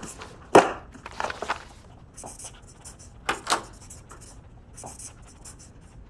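Paperback books being handled and set down on stacks, with a few sharp knocks. In between come short bursts of a pen scratching as copies are signed one after another.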